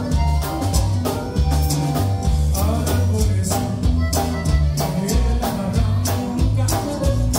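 Live conjunto band playing: a button accordion carries the melody over electric bass, guitar and a drum kit keeping a steady beat, with a man singing.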